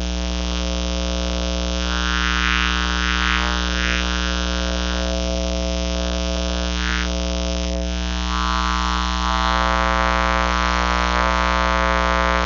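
A loud, steady electrical hum and buzz with many even overtones, and hiss that swells up at times.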